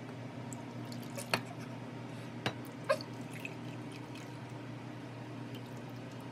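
Egg-and-milk custard mixture poured from a bowl into glass containers, with three or four sharp clicks about one to three seconds in, over a steady low hum.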